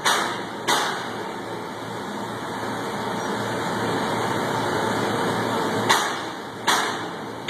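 Steady machinery noise with four sharp knocks, two right at the start and two near the end, each fading over about half a second.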